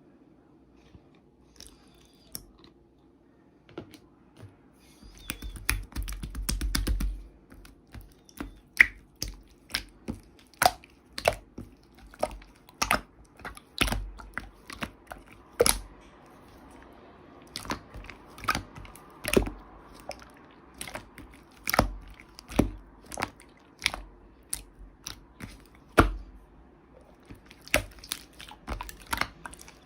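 Slime being played with by hand: irregular sharp, sticky clicks and pops as it is pressed, stretched and folded, thickest about five seconds in.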